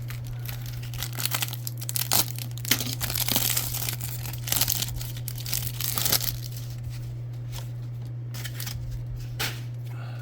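A foil trading-card pack being torn open and its wrapper crinkled, in a run of rustling tears for several seconds, then a few light crinkles and clicks, over a steady low hum.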